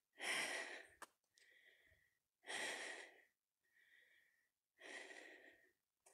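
A person breathing hard after a steep climb, close to the microphone: three heavier breaths alternate with two softer ones, roughly one breath every second.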